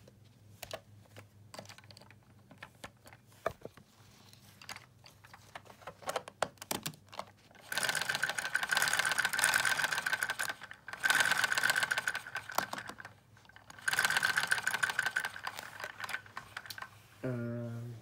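LEGO bricks and Technic parts clicking and snapping as they are handled and fitted onto the engine's axle, with three bursts of fast mechanical ticking and a steady high whine about eight, eleven and fourteen seconds in. A short hum-like voice sounds near the end.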